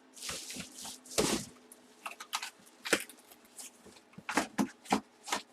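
Cardboard helmet box and its packing being handled, giving a run of irregular knocks, scrapes and rustles as a helmet is put back into the box.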